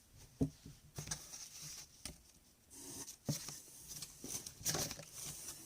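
Product packaging being handled by hand: irregular rustling and sharp clicks.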